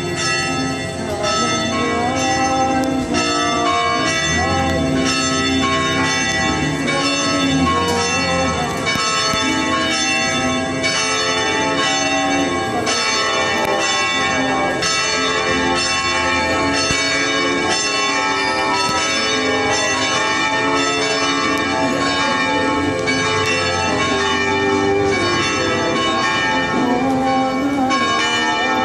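Church tower bells ringing continuously, several bells struck in many overlapping strokes, each note left ringing into the next.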